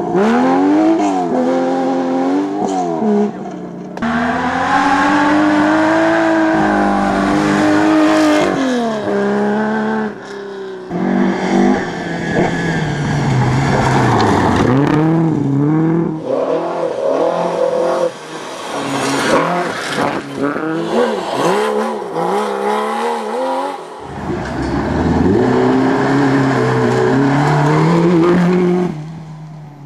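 Several historic rally cars, among them an air-cooled flat-six Porsche 911 and a Ford Escort Mk2, driven flat out one after another on a gravel stage. Engines rev up hard and drop at each gear change as the cars pass, with gravel and tyre noise under them.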